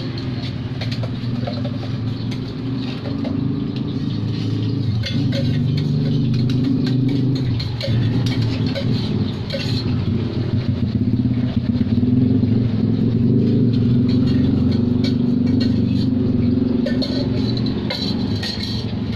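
A motor engine running steadily close by, its pitch shifting a few times, with sharp clinks of metal utensils against pans over it.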